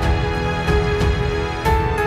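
Background music: a melody over a steady beat of about three strokes a second.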